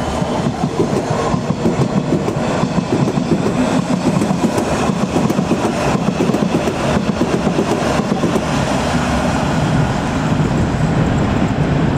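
London Underground S7 stock District line train pulling away: a steady running rumble of wheels on rail with frequent clicks.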